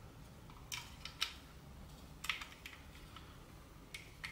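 A few faint, irregular clicks and taps of a metal valve key and gas magazine valve against a plastic HPA adapter as the valve is fitted and screwed in.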